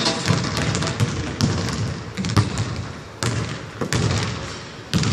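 Basketball bouncing on a hardwood gym floor, about six uneven thumps, each echoing briefly in the large hall.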